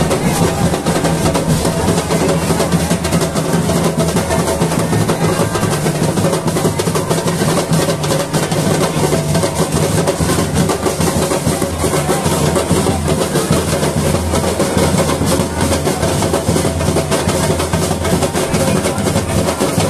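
Loud, continuous street-carnival percussion music: drums beating densely without a break, accompanying a parading carnival bull figure.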